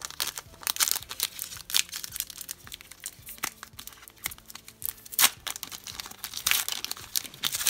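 A foil hockey-card pack wrapper being torn open and crinkled by gloved hands, a run of sharp crackles that gets busier near the end.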